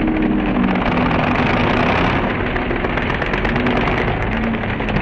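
Demolition derby truck engines running loud, with a rapid crackling exhaust and a few short revs.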